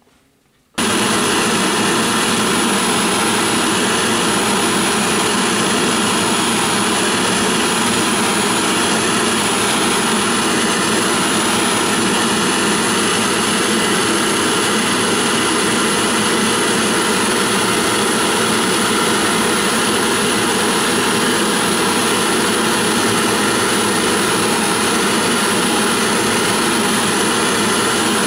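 Bottled-gas brazing torch running steadily at full flame, heating a small copper boiler to silver-soldering temperature. It comes in abruptly about a second in and holds an even level.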